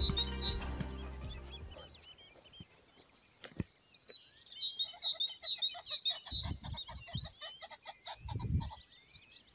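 Common pheasant cackling in a fast run of harsh repeated notes, with a few low thumps partway through.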